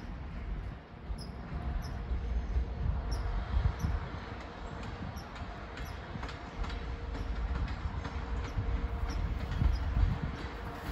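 Electric-hauled container freight train running past on the far track: a steady low rumble of the wagons, with wheels clicking in an even rhythm over the rail joints from about halfway through.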